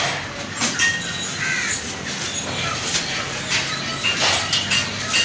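Crows cawing several times in short, harsh calls, mixed with scrapes and knocks of knife work on mutton.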